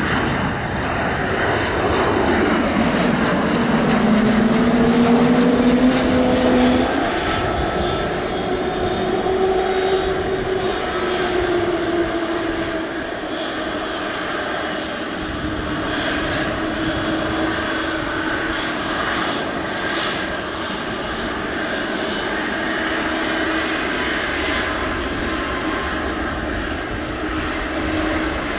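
Twin jet engines of a United Boeing 737-900 airliner on short final, the engine whine falling in pitch as it passes close by in the first few seconds. A steady jet roar continues as the plane touches down and rolls out.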